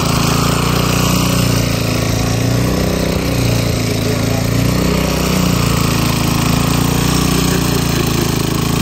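Small engine driving a water pump, running steadily at a constant speed to draw well water for the rice field.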